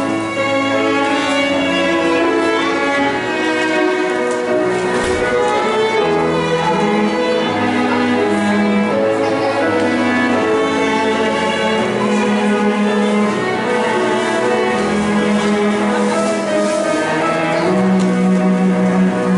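An instrumental trio, led by bowed strings, playing a slow hymn tune in long sustained notes.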